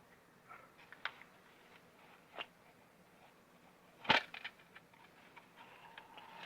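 Scattered clicks and knocks of parts being handled while a submersible drainage pump is taken apart: a few light clicks, then one louder knock about four seconds in followed by a short run of faint ticks.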